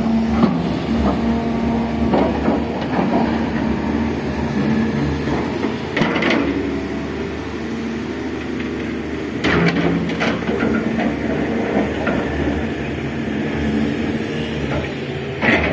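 Volvo EC300D excavator working, its diesel engine running steadily, with short clatters about six, nine and a half and fifteen and a half seconds in.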